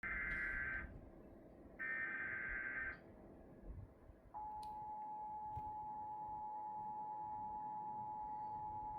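Emergency Alert System tones: two brief buzzing SAME header data bursts, then, about four seconds in, the EAS two-tone attention signal starts and holds steady. Together they signal the start of a broadcast emergency alert, here a severe thunderstorm warning.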